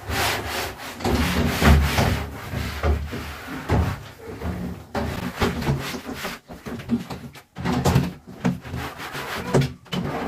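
Cloth rubbed over the shower enclosure's panels by a gloved hand, drying them to stop water spots: a run of uneven wiping strokes.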